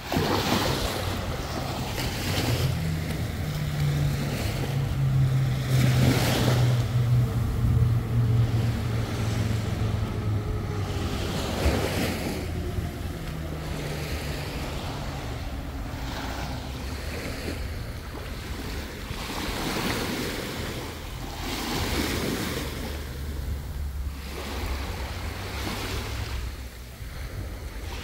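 Sea waves surging and washing in repeatedly, with wind on the microphone. A low steady hum runs underneath from about three seconds in to about eleven.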